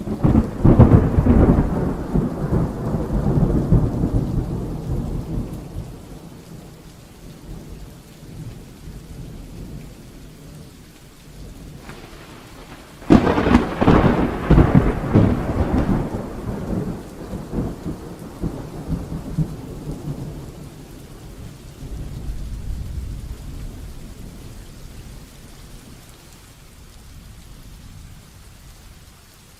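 Heavy rain falling steadily, broken by two loud thunderclaps: one right at the start that rumbles away over about five seconds, and a sharper crack about halfway through that rolls on and fades. A softer rumble of thunder follows later.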